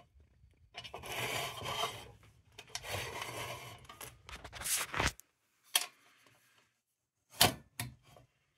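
Parts of a tin lantern being handled: two stretches of rubbing and scraping, then a few sharp metal clicks and knocks, the loudest near the end.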